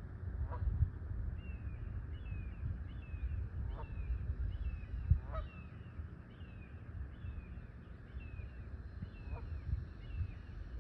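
Water birds calling: a few short honks, and a high, short, falling call repeated about every half second from about a second and a half in. Under them runs a low wind rumble on the microphone, with one sharp bump near the middle.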